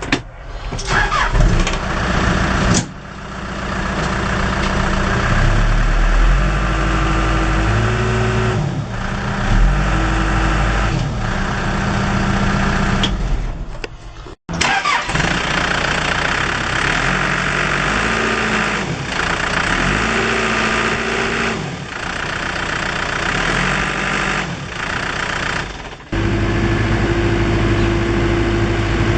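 Diesel engine of a Case 580 Super M backhoe loader starting, then running, its pitch rising and falling back several times as it is revved or loaded. The sound breaks off briefly about halfway through and settles to a steadier run near the end.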